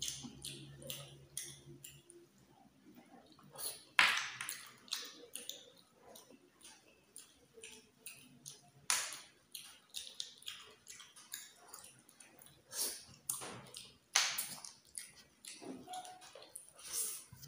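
Close-up mouth sounds of eating snails cooked in coconut milk: many small wet clicks and lip smacks, with a few louder sucking slurps spaced several seconds apart as the meat is drawn from the shells.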